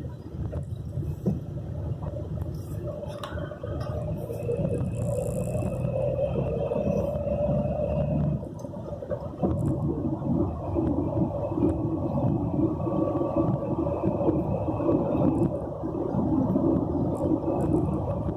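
A car driving, with a steady low road rumble and an engine drone.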